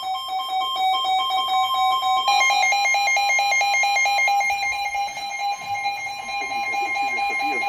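NOAA weather radio receivers sounding emergency alert tones for a severe thunderstorm warning: steady alert tones, joined about two seconds in by a rapid pulsing beep from a second radio. A broadcast voice begins faintly near the end.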